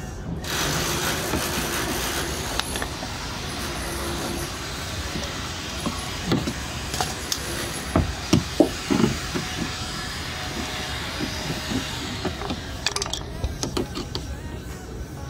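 Steady rushing noise, with a few sharp clicks and knocks of pliers and a screwdriver working a plastic clip under the car, clustered around the middle.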